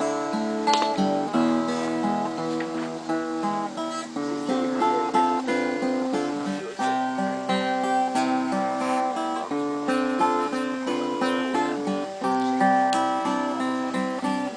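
Music: acoustic guitar strummed and picked, with notes changing every second or so.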